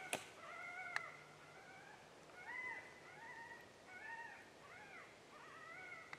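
Coyote pup distress sound played from an electronic game caller: a string of high whining yelps, each rising and falling in pitch, about one a second. Two sharp clicks come near the start and about a second in.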